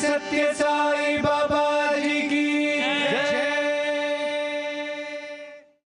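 Devotional bhajan chanting, one long note held over steady accompaniment with a few percussion strokes, fading out just before the end.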